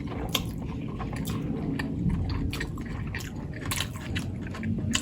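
Close-up chewing and wet mouth sounds of someone eating buff momo dumplings, with small scattered clicks and smacks.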